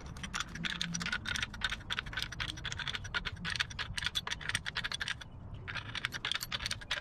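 Rapid metallic clicking of a combination wrench working the nut of a case splitter fitted in an air-cooled VW engine case, with a short pause about five seconds in.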